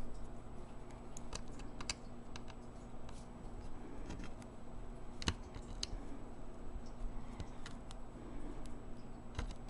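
Faint, irregular light clicks and taps of fingers and fingernails on the plastic parts of an opened laptop, working at a stubborn cable connector, over a low steady hum.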